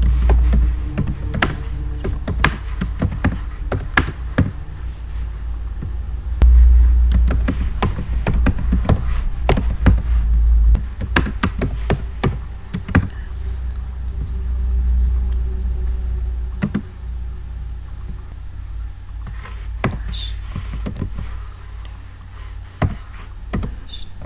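Typing on a computer keyboard: a long run of irregular key clicks, with a low rumble underneath.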